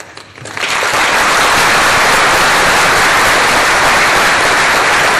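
Audience applauding: a few scattered claps that swell within the first second into steady, dense applause.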